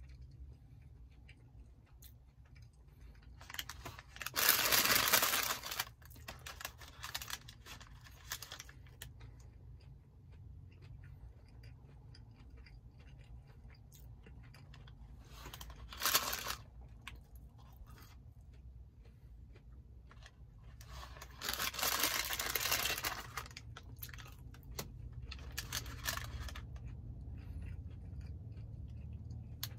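A person chewing fried cheese curds and handling their paper bag, with about five loud rustling, crunching bursts. The longest and loudest come a few seconds in and again past the middle.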